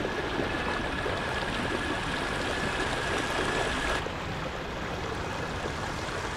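Water rushing and splashing along the hull and wake of a kayak running at near full throttle, about 4.8 mph, under a Torqeedo Ultralight 403 electric outboard. A thin steady high whine sits over the rush and cuts off abruptly about four seconds in.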